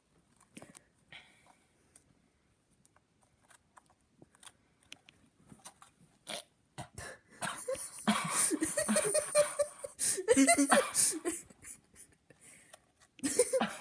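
Muffled, breathy vocal noises and wheezy laughter from a person with a mouth stuffed full of Oreo cookies, coming in loud bursts about eight seconds in after several quiet seconds of faint clicks.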